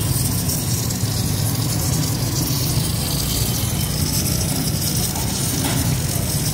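Constant kitchen noise: a steady low rumble with a hiss over it, unbroken throughout.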